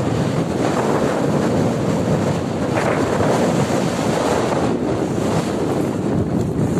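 Steady rushing noise of wind buffeting the microphone, mixed with the wash of river water.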